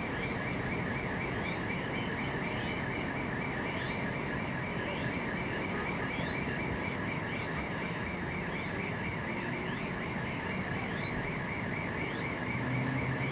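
A warbling electronic alarm: one tone wavering rapidly up and down without a break, over a steady rushing noise.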